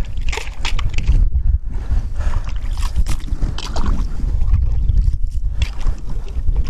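Plastic ice skimmer scooping slush and ice out of an ice-fishing hole, with irregular scrapes against the ice edge and water sloshing as the scoop dips in and comes out, clearing a hole that has frozen over. A heavy wind rumble on the microphone runs underneath.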